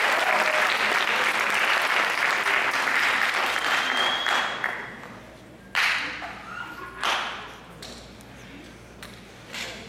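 Audience applause dying away about halfway through, with a brief high whistle near its end. Then three sharp knocks, a second or more apart, in the quieted hall.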